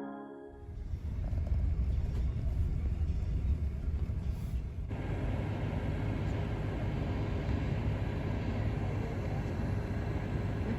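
A steady low rumble with a noisy hiss over it, becoming fuller about five seconds in.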